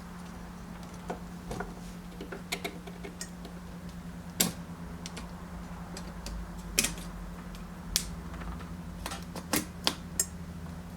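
Irregular sharp clicks and taps of small hard objects being handled on a workbench, over a steady low hum.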